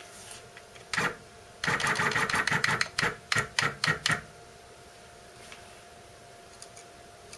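Stepper motor driving the mill's X-axis ball screw in short jogs: one short burst about a second in, then about ten quick bursts at roughly four a second over two and a half seconds.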